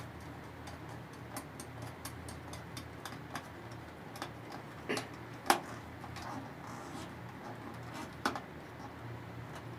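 Scattered sharp clicks and light taps from hand work on a lift's contactor and its wiring, the loudest about five and a half seconds in, over a faint steady low hum.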